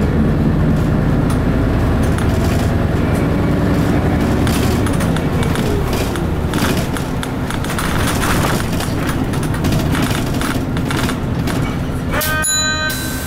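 Isuzu KC-LV380N bus's V8 diesel engine running steadily while the bus drives, heard from inside the cabin over road noise. About a second before the end, a short pitched tone sounds briefly.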